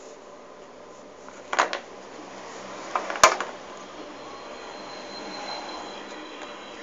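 Handling noise as plastic toy figurines are moved about: two short knocks about a second and a half apart, the second a sharp click, over a low steady hiss.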